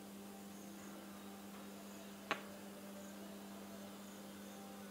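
Faint steady electrical hum, with one sharp click about two seconds in.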